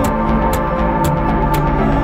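Background music: sustained held tones with a sharp tick about twice a second, like a steady beat.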